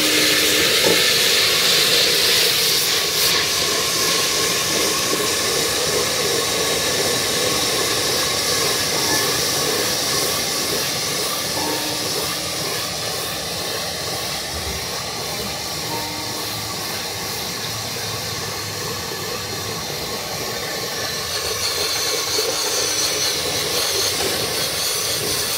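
Coconut oil sizzling and bubbling in a pot as the last of its water cooks off, a steady hiss that eases a little midway and picks up again near the end.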